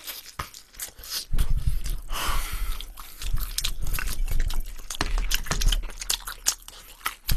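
A person biting and chewing glazed fried chicken close to the microphone, with crunching and many short wet clicks of the mouth.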